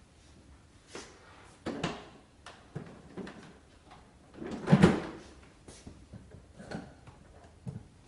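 Hard plastic knocks and clatter as the motor head of a Karcher SE 5.100 washing vacuum is handled and set down onto its yellow tank. The loudest thump comes about five seconds in, with a few lighter clicks before and after.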